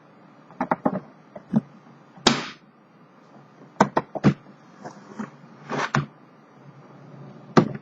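A hard-shell typewriter carrying case being handled: a series of separate sharp clicks and knocks, with two firmer knocks, one a little past two seconds in and one near the end.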